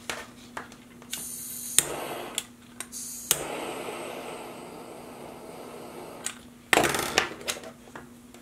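Butane torch lighter clicked on a few times, then its flame hissing steadily for about three seconds while melting the cut ends of nylon paracord. A loud burst of handling noise comes near the end.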